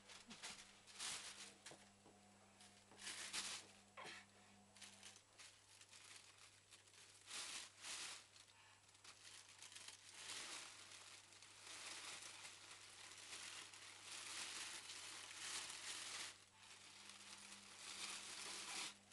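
Clear plastic bag crinkling and rustling as it is dragged and handled. It starts as short separate bursts, then becomes near-continuous crinkling through the second half.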